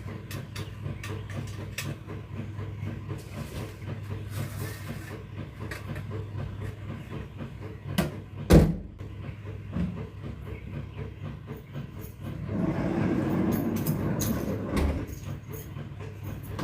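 Speaker stands and sound gear being handled and set in place: scattered clicks and knocks, one loud thump about eight and a half seconds in, and a scraping stretch of about two seconds near the end, over a steady low hum.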